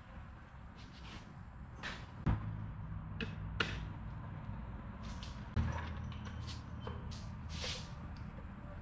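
Knocks and clanks of a steel go-kart frame and its wheels being handled and shifted, with rustling and shuffling between. The loudest knocks come about two, three and a half and five and a half seconds in, and the first and last of these are each followed by a low hum lasting a second or two.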